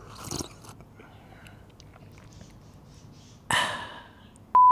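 A slurping sip from a mug just after the start, then a loud, breathy 'ahh' exhale about three and a half seconds in. Near the end a short, loud, steady beep cuts in.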